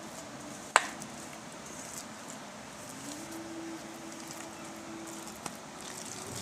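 A hand squishing and kneading wet ground khesari-dal paste in a steel bowl, with one sharp knock about a second in and a faint steady hum.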